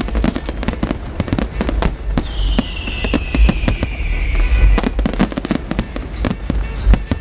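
Fireworks display: a rapid, dense run of sharp bangs and crackles from bursting aerial shells over a constant low rumble. About two seconds in, a whistle slides slowly down in pitch and fades out near the five-second mark.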